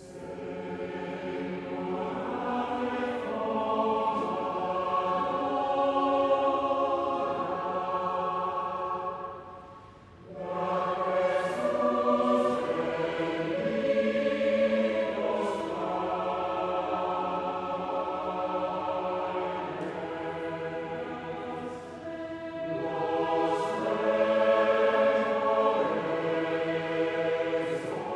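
Mixed choir of men and women singing held chords together, breaking off briefly about ten seconds in before the next phrase begins.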